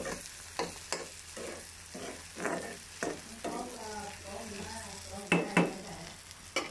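A metal spatula scrapes and taps against a stone-coated frying pan while stirring halved boiled eggs and onions frying in oil, over a steady sizzle. There are irregular strokes throughout, with two loud scrapes close together about five seconds in.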